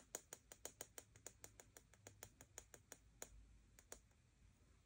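Faint, rapid light clicking, about six clicks a second, thinning out and stopping about four seconds in.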